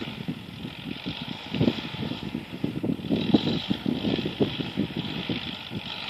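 Wind buffeting the microphone in uneven gusts, over a steady outdoor hiss.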